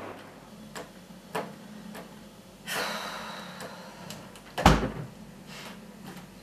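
A door being handled: a few light clicks, a brief scraping rush about three seconds in, then a heavy thud of the door shutting just under five seconds in.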